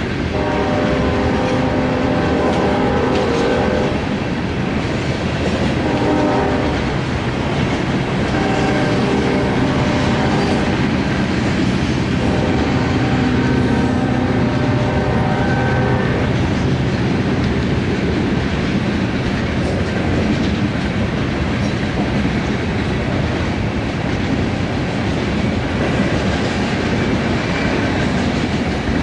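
Locomotive air horn on a loaded coal train sounds four times, sharply cut off between blasts: long, short, long, long, over the first half or so. Through and after the blasts runs the steady rumble and wheel clatter of the heavy train rolling past.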